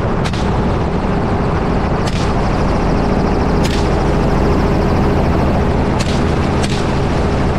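Steady helicopter noise with a low droning hum, heard from on board, with five gunshots fired from the helicopter at uneven intervals over about six and a half seconds, the last two close together.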